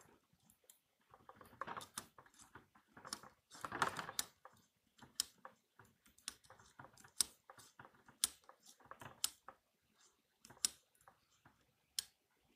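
Safety wire pliers gripping and twist-tightening the wire stitches along a plywood boat hull's keel seam: irregular sharp metallic clicks, roughly one or two a second, with short rustles of hands and wire on the plywood.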